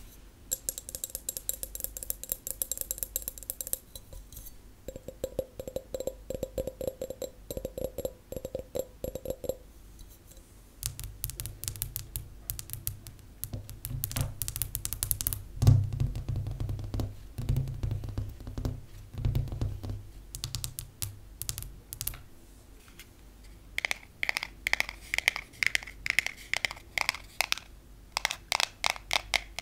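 Rapid fingernail tapping in three runs. First, long fake nails tap a clear drinking glass, which rings with a steady tone. Then the nails tap the table top with dull low knocks, and near the end natural nails tap a long translucent rod that rings higher.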